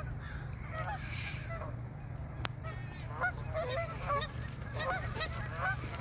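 A flock of Canada geese honking: many short, overlapping calls that grow busier in the second half, over a steady low rumble.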